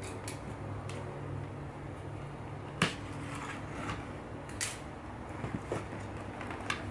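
Cardboard lid of a LEGO Architecture Studio box being lifted off and handled, with a few sharp taps and knocks, the loudest a little under three seconds in, over a steady low hum.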